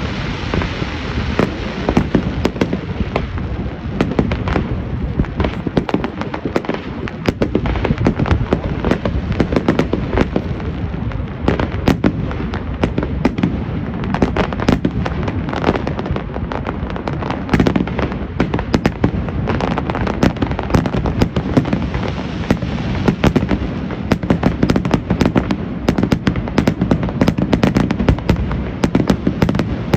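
Fireworks display: a dense, continuous run of bangs and crackling pops over a steady low rumble.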